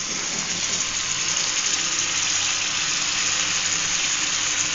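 Freshly added chopped tomatoes sizzling steadily in hot oil and fried chilli powder and masala in a kadai. The sizzle grows a little in the first second, then holds even.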